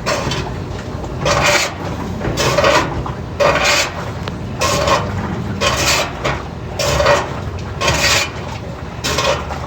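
General Electric washing machine running a wash cycle with a harsh, rhythmic scraping about once a second. The technician puts it down to the tub sagging and hitting the bottom of the cabinet.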